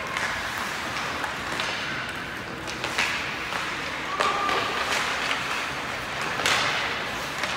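Ice hockey play in an indoor rink: sharp clacks of sticks and puck striking the ice and boards, five or so spread out, over the steady scrape and hiss of skates.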